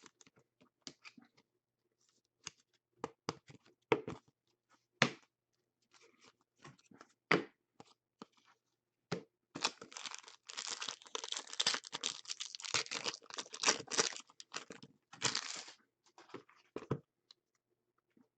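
Trading cards handled with scattered light clicks and taps, then from about ten seconds in, some six seconds of tearing and crinkling as a foil card-pack wrapper is ripped open, ending with a few more taps.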